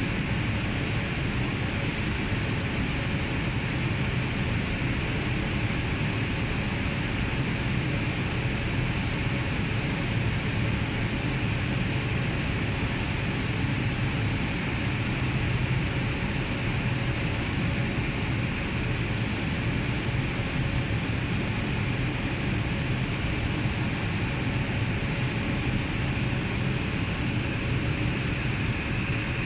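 Steady drone of equipment-room cooling fans and air conditioning, an even rushing noise with a low hum underneath.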